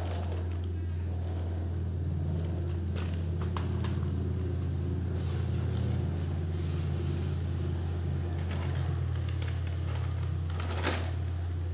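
Plastic toy trucks rolled by hand across a tile floor: a short rolling rumble as the marble-loaded dump truck is pushed off at the start, then a few light knocks, and near the end the wheels of a clear plastic toy car scrape and knock on the tiles. A steady low hum runs underneath.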